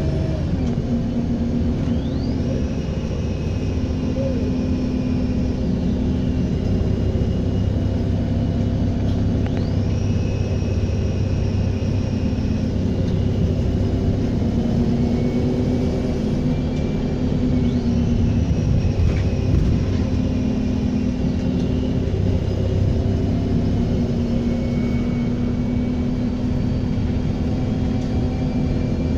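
Bus diesel engine running with a low rumble while its turbocharger whistles: a high whine rises sharply, holds for a few seconds and then drops away, three times over.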